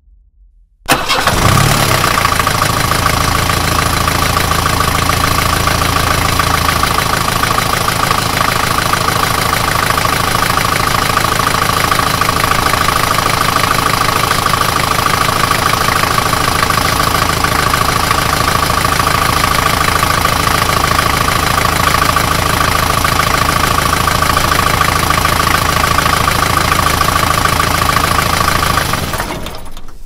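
Bus engine starting abruptly about a second in and then idling steadily, with a constant high whine over the engine running, until it dies away near the end.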